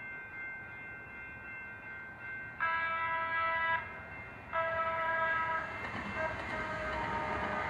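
Train horn sounding two long blasts of about a second each, then holding weaker tones while the noise of the approaching train rises.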